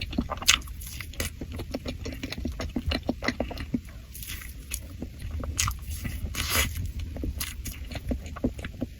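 A person chewing and eating cake, with many small, irregular clicks throughout.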